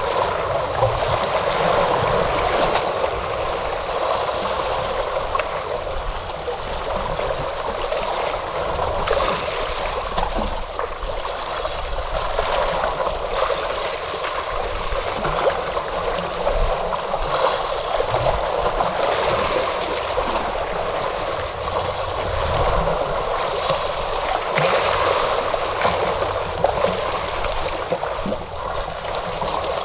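Ocean waves washing on a shore: a continuous rush of water that swells and eases gently.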